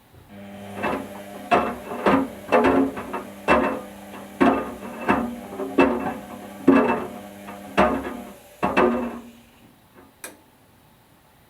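Whirlpool washing machine drum turning, with a steady motor hum and toy ducks knocking against the drum about once or twice a second; the hum and knocking stop near the end.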